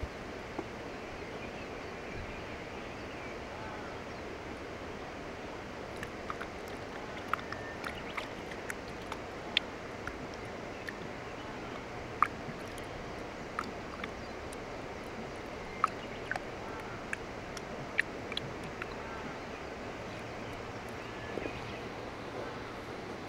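Quiet outdoor ambience at the water's edge: a steady hiss, with scattered short ticks and little chirps between about six and nineteen seconds in.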